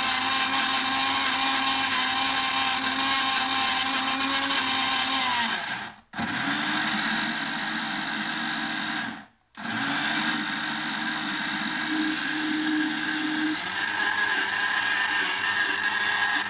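Moulinex countertop blender motor running, blending a cake batter with cocoa. It cuts out briefly twice near the middle and restarts each time, then runs on with its pitch shifting up near the end.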